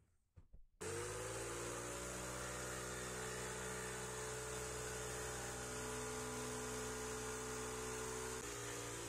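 Electric jigsaw starting about a second in, its pitch rising briefly as the motor spins up, then running steadily as the blade cuts through a thin pine board. The pitch steps down slightly near the end.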